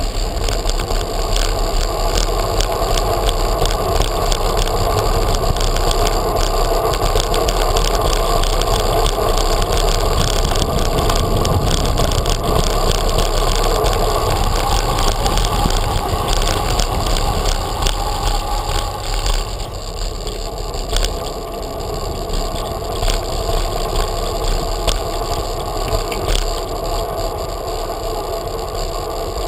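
Ride noise from a bicycle-mounted GoPro: the bicycle's tyres rolling over stone paving and setts, a steady rumble that gets a little quieter about twenty seconds in.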